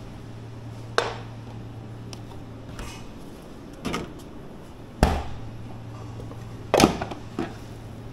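About five sharp, irregular knocks and clatters of kitchen tools and containers being handled on a work surface. The loudest is a double knock near the end. A steady low hum runs underneath.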